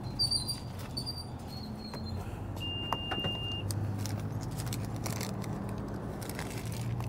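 Keys jingling in the first second or so, then a single steady beep about a second long, over a steady low hum like a car engine idling.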